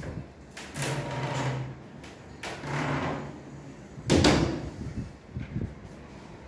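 Small wooden wardrobe cabinet doors being moved and pushed shut, with a sharp knock as a door closes about four seconds in, then a few light clicks.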